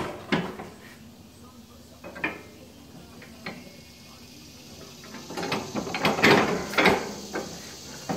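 Steel plow-mount hardware being worked by hand: a few separate metal clicks, then a burst of clattering knocks about five to seven seconds in as the SnoWay plow's stand and lift tool are moved.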